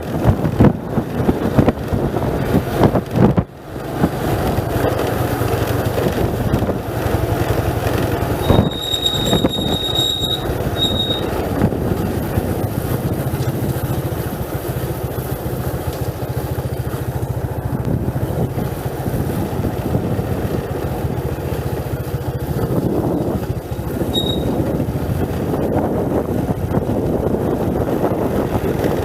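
A vehicle running down a steep mountain road: a steady engine hum under road and wind noise, gusty for the first few seconds. A high-pitched squeal comes twice, about 9 to 11 seconds in and briefly near the end.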